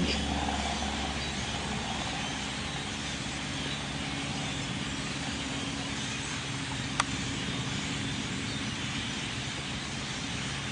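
Steady hum of distant road traffic, with a single sharp click about seven seconds in.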